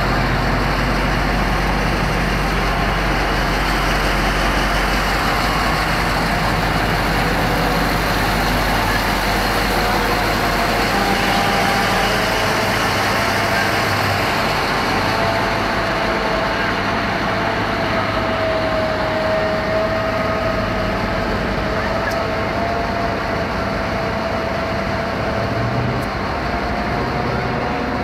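Caterpillar 793 mining haul truck's V16 diesel engine running steadily as the truck drives along, with a steady whine running through the engine sound from about halfway on.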